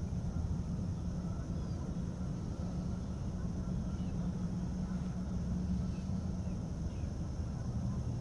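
Electric trolling motor of a small fishing boat running at a steady low hum. Faint bird chirps and a steady high insect drone sound over it.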